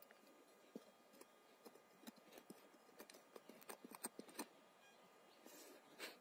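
Faint, irregular small knocks and crunches of soil and stones being handled as a metal test target is buried in the ground, with a short scraping rustle near the end.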